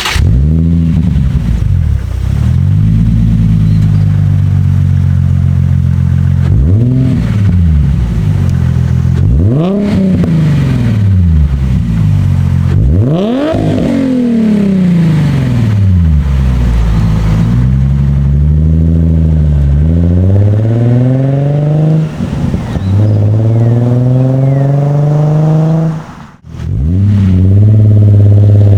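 Nissan 350Z's 3.5-litre V6 through a Z1 cat-back touring exhaust, idling steadily, then blipped three times with each rev higher than the last before settling back to idle. It is then held at raised revs twice. Near the end the sound cuts out briefly and comes back loudest, the revs climbing.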